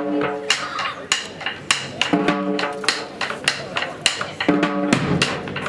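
Tribal pipes-and-drums band playing: drums struck in a fast, driving pattern, with a short held pitched note cutting in about every two seconds.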